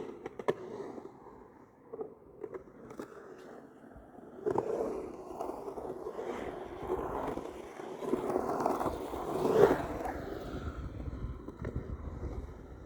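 Skateboard: a few sharp clacks of the board in the first seconds, then from about four and a half seconds a long stretch of wheels rolling and scraping, loudest about nine and a half seconds in and easing near the end.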